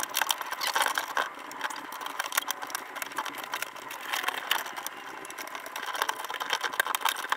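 Thin laser-cut plywood deck panel being bent and pushed into the slots of a plywood hull frame: a dense run of small wooden clicks and scraping.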